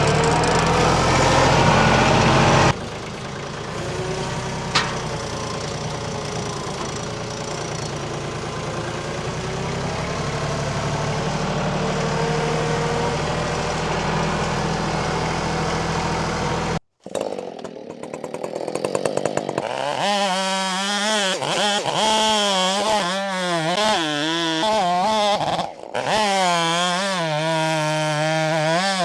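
Husqvarna 572XP chainsaw cutting through a large pecan log, in several edited stretches. Its high-pitched engine note repeatedly dips as the chain loads in the wood and then recovers. A lower engine runs for the first couple of seconds.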